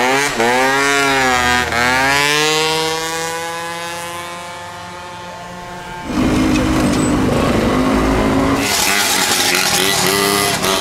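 Small two-stroke engines riding past. A Yamaha Jog scooter revs up hard twice as it pulls away, then its note holds and fades as it rides off. About six seconds in a louder engine cuts in, and near the end a motorized bicycle's small engine buzzes by.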